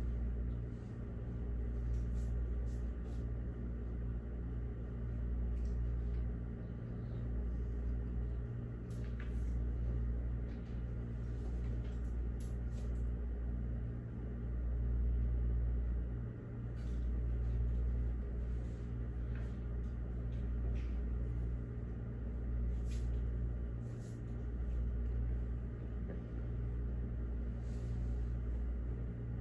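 Steady low room hum that swells and dips slowly, with a few faint scattered clicks and taps.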